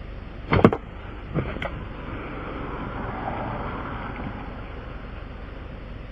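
A sharp knock about half a second in, then two lighter knocks, from tools being handled during a roadside tire plug repair, over steady passing-traffic noise that swells briefly in the middle.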